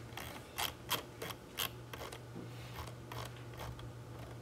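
A pen scratching on paper in about eight short strokes, in a quick run and then a few more after a short gap, over a faint steady hum.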